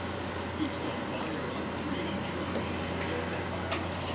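A kitchen knife cutting through tender smoked brisket on a plastic cutting board, with a couple of sharp taps of the blade on the board near the end, over a steady background hiss and low hum.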